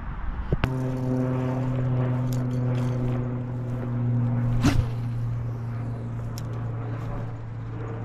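A steady engine drone, a low hum with clear overtones, setting in abruptly about a second in and holding an even pitch; a short knock of handling noise about halfway.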